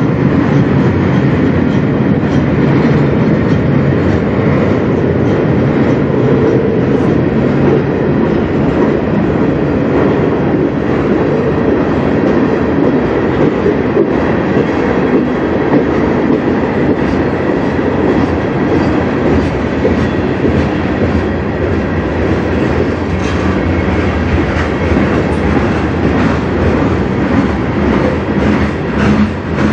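Freight cars of a manifest train rolling past at steady speed: a loud, steady rumble of steel wheels on rail, with clicks of wheels over rail joints that come more often in the second half.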